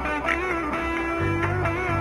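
Background music: a held, wavering melody over steady bass notes.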